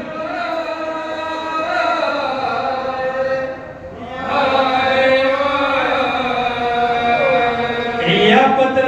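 A man's voice chanting a Pashto mourning lament for Imam Husain unaccompanied, in long drawn-out melodic lines with a short breath about three and a half seconds in.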